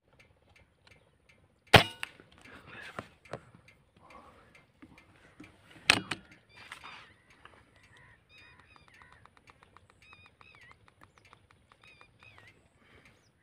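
Two sharp shots from a PCP air rifle, about four seconds apart, each with a brief ringing tail. Birds then call repeatedly in the background, with short pitched calls that curve up and down and a brief fast run of clicks.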